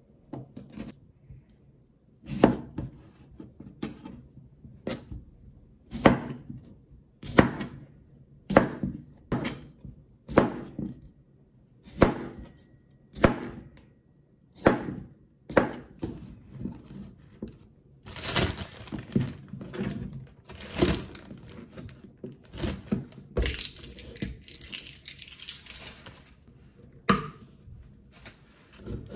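Kitchen knife chopping a cucumber into chunks on a plastic cutting board, one sharp chop about every second. Later, a plastic zip-top bag rustles and crinkles as the cucumber pieces are handled in it, with a sharp click near the end.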